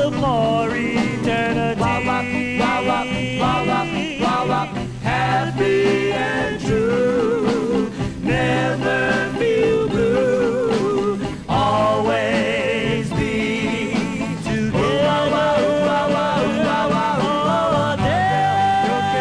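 A vocal group record playing an upbeat twist dance song: a band with long notes held with vibrato over a steady bass line.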